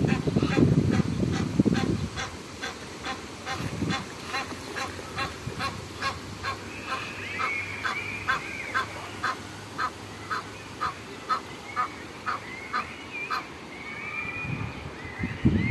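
An adult goose honking over and over at an even pace, about two to three short calls a second, with goslings' thin high peeps rising and falling over it from about halfway through.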